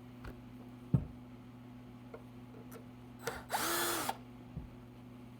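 A sharp knock about a second in, then a few small clicks. About three and a half seconds in, a cordless screw gun with a 2.5 mm hex bit whirs for about half a second, its pitch rising as it spins up and falling as it stops, backing out a screw from the amplifier's cover plate.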